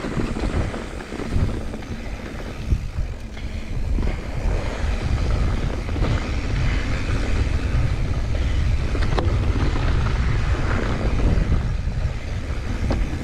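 Wind buffeting an action camera's microphone as a mountain bike runs fast down a dirt trail, with a steady rumble from the tyres on dirt and a few sharp clicks and rattles from the bike.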